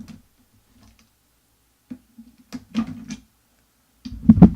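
Scattered sharp clicks and knocks of hard plastic parts and tools being handled on a workbench, a cluster of them about halfway through, with a louder knock near the end.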